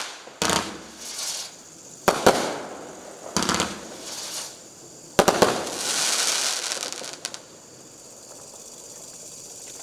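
A 24-shot consumer fireworks cake with 1.2-inch tubes firing its last shots: six sharp bangs, coming singly and in quick pairs, each followed by a crackling hiss. The volley ends about seven seconds in.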